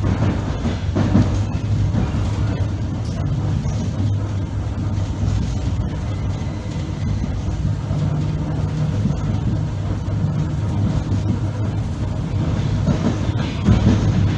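Interior ride noise of an ER9P electric multiple unit running at speed: a steady low hum over the rumble of wheels on the rails, with occasional faint clicks from the running gear.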